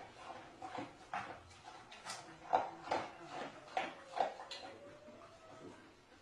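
Metal food bowls clinking and scraping under a spoon and a dog's muzzle as both eat, in short irregular clinks about two a second.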